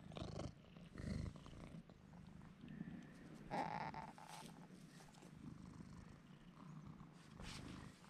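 Grey domestic cat purring steadily close to the microphone, with a brief louder sound about three and a half seconds in.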